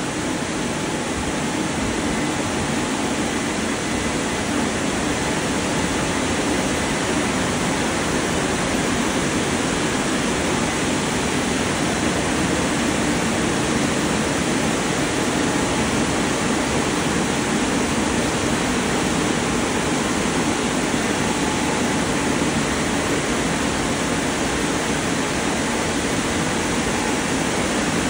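WashTec gantry car wash's dryer blowers running, a steady rush of air blasting over the car in the drying phase.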